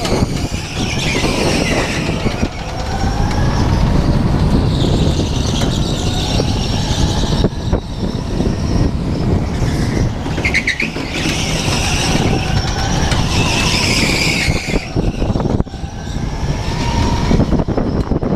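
Go-kart running at speed, heard from a camera mounted on the kart: a steady low rumble with wind buffeting the microphone, and high squeals that come and go several times as it goes through the corners.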